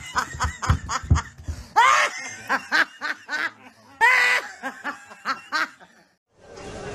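A person laughing hard in quick repeated bursts, with two louder, high-pitched peaks of laughter; the laughter stops near the end.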